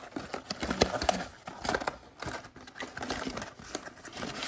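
Cardboard trading-card mega box being opened by hand: irregular rustling, scraping and small clicks as the paperboard flap and lid are pulled open.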